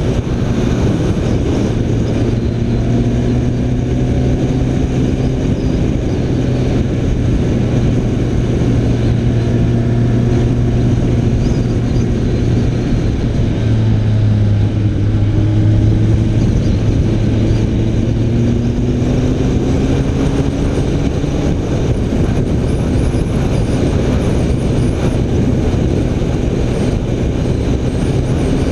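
BMW K1300R's inline-four engine running under way, its note rising and falling gently as speed changes, over a steady rushing noise.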